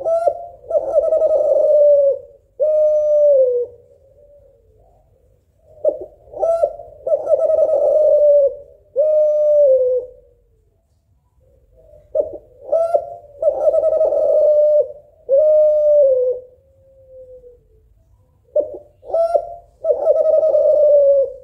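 Kelantan-strain spotted dove cooing: four phrases a few seconds apart, each a couple of short notes followed by a long coo and a shorter coo that falls in pitch. The last phrase is still going at the end.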